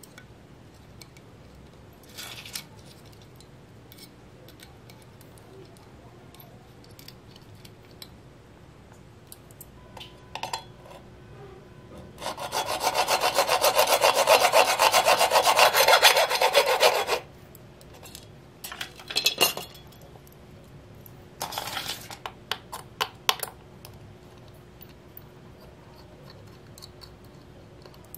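A hacksaw cuts through a small white plastic bracket held against a wooden block, with about five seconds of rapid back-and-forth strokes starting about twelve seconds in. Light clicks and taps of the part being handled come before and after.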